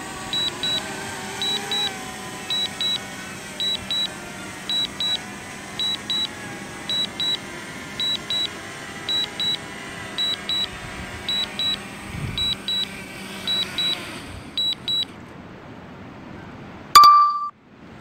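DJI Fly app's landing alert: short high double beeps, a pair about once a second, while the DJI Mavic Mini auto-lands, over a faint steady hum. The beeping stops about 15 seconds in, and a single short, louder tone sounds near the end.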